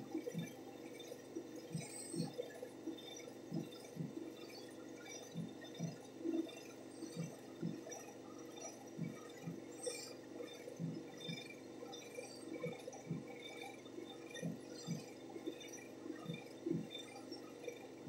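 Fingertips rubbing and patting a serum into facial skin: faint, irregular soft wet pats, about one or two a second, over a faint steady hum.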